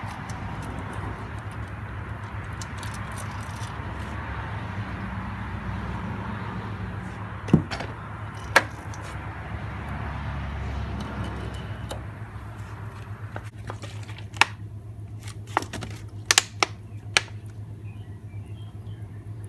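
Metal clinks and light rattling of a timing chain and small engine parts being handled at a motorcycle's open crankcase, over a steady low hum. Two sharp clinks come a little under halfway through, and a quick run of clinks comes near the end.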